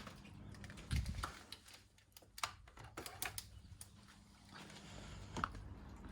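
Irregular light clicks and taps, a few a second with a heavier knock about a second in, over a faint low steady hum.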